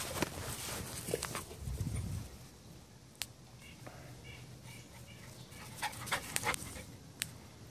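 A small Teddy Roosevelt Terrier panting as she dashes about on the grass after a bath, with a few faint short sharp clicks.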